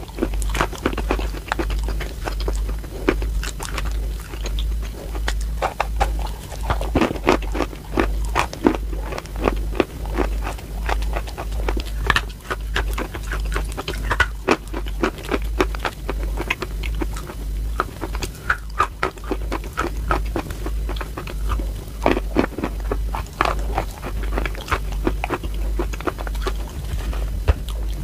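Close-miked bites and chewing of a dry, crumbly block: dense crunching and crackling clicks, with a steady low hum underneath.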